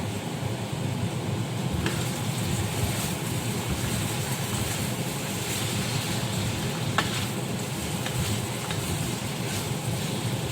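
Vegetable filling sizzling in a frying pan while being stirred, with a couple of sharp taps of the utensil against the pan.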